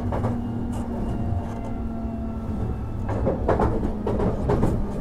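Interior running sound of a Hankyu 1000 series train: low wheel-and-rail rumble under a steady hum from its permanent-magnet synchronous motor drive, as the train approaches a station stop. The tone stops about halfway through, and several short rattles and knocks from the car follow.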